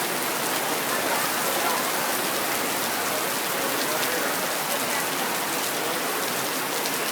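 Heavy rain falling steadily, a dense even hiss of drops hitting the surfaces around.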